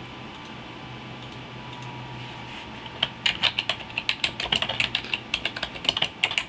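Computer keyboard typing: a quick run of keystrokes that starts about three seconds in, after a stretch with only a faint low hum.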